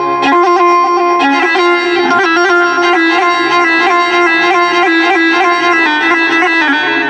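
Electronic keyboard playing an ornamented Middle Eastern melody in a reedy, bowed-string-like voice over a held tone, with no singing: an instrumental passage of an Iraqi mawwal.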